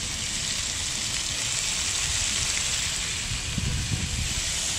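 Seafood (cuttlefish pieces) sizzling steadily in a frying pan on a portable gas stove, an even high hiss.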